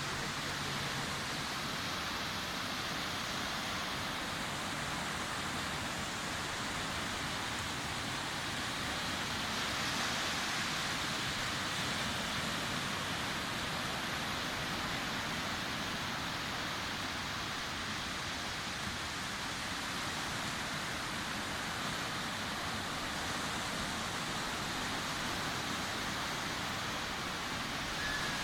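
Sea surf breaking and washing on a beach, a steady rushing wash that swells a little about ten seconds in.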